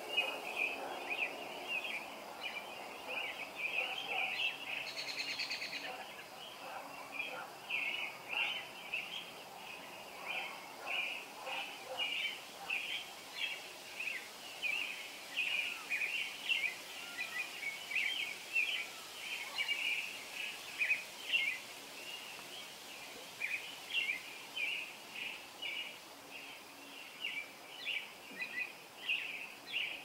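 Robin singing at dawn: a long run of short, high chirping phrases repeated one after another, with a higher, rapid trill about five seconds in.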